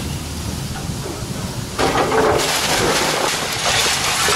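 Excavator's diesel engine running, then about two seconds in a sudden crash and clatter as its bucket breaks into a brick wall and bricks and debris fall.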